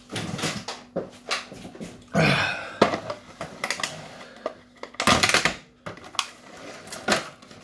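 Irregular clicks, knocks and rustling of small objects being handled at close range, with two louder rustling stretches, one about two seconds in and one about five seconds in.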